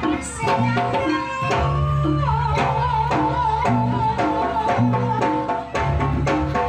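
Live Javanese jaranan gamelan music: kendang hand-drum strokes and tuned bronze pot-gongs keep a steady beat under a held high melody line that slides down in pitch about a third of the way through.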